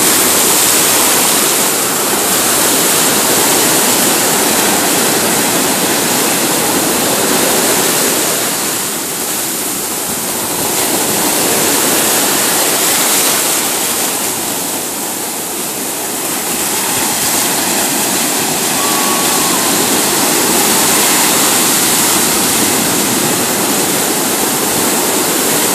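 Ocean surf: waves breaking and whitewater rushing through the shallows in a loud, continuous wash that swells and eases, dipping twice briefly.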